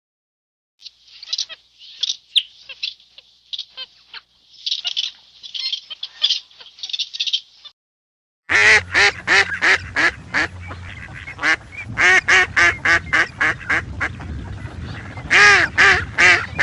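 Animal calls in two clips. First come thin, high chirping calls. After a short break there is a fast run of loud, repeated harsh calls, about two or three a second.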